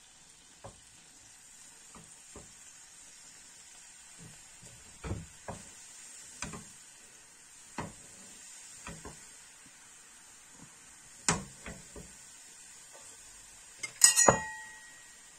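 Monkfish tails sizzling in a frying pan with a steady hiss, broken by scattered knocks and clinks of a utensil against the pan. The loudest is a sharp ringing clink near the end.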